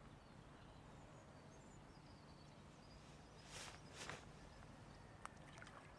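Near silence outdoors, with a few faint bird chirps, two short rustles a little past halfway and a single sharp click near the end.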